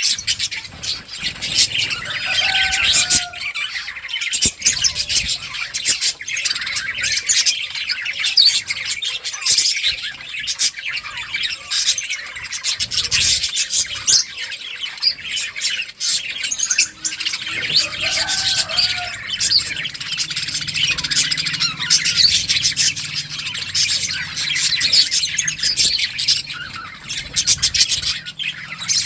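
A flock of budgerigars chirping and chattering, many short calls overlapping continuously.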